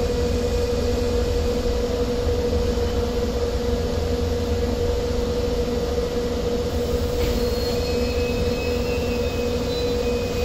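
Indian Railways passenger coach rolling slowly into a station, heard from the open doorway: a steady low rumble of wheels on rail with a steady hum. Faint high-pitched wheel squeals begin about seven seconds in.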